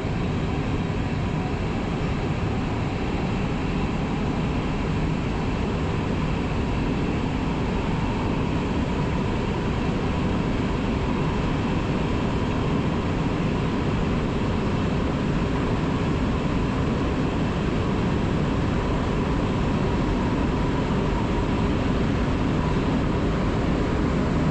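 Class 471 electric multiple unit running along the line: a steady rumble of wheels and running noise with a faint steady whine.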